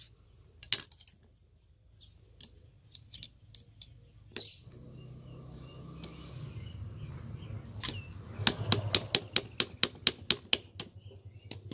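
Small metal parts and tools of a starter motor clicking and clinking as it is dismantled, sparse at first and then a quick run of sharp taps from about eight seconds in. A steady low hum comes in about four and a half seconds in.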